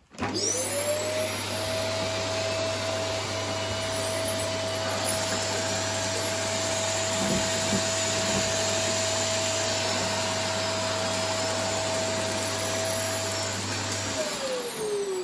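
Dyson Cinetic Big Ball Animal cylinder vacuum switching on, its motor whine rising quickly to a steady pitch and running as it vacuums a carpet. Near the end it loses power and winds down with a falling whine: the power cable was not plugged in properly.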